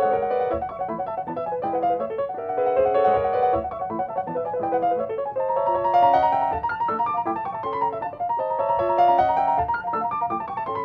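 Grand piano played solo: a classical piece in a continuous stream of quick notes, with fast runs and repeated figures in the middle and upper register.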